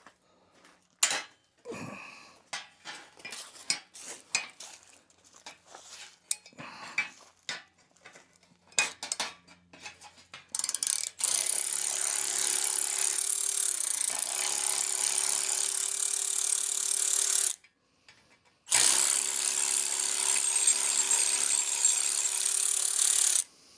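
Scattered clinks and knocks of metal parts being handled, then a cordless power tool running steadily for about six seconds, stopping for a second, and running again for about five seconds as it backs out tight Torx bolts from a bumper bracket.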